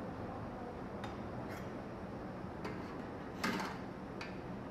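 A metal slotted spoon clicking against a dumpling steamer pot and its perforated tray as dumplings are lifted out, with a few light clicks and one louder clatter about three and a half seconds in. A steady kitchen hum runs underneath.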